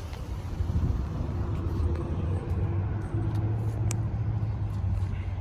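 Car engine idling steadily, a low rumble heard from inside the cabin.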